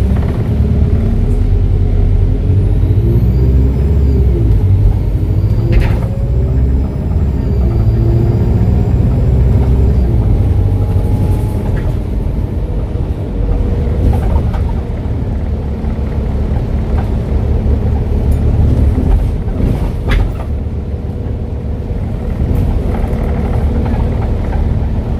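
Diesel engine of an ADL Enviro 400H double-decker bus, converted from hybrid to diesel drive, running as the bus drives, its engine note rising and falling. A high turbo whistle glides up and down a few seconds in, and there are a couple of sharp knocks.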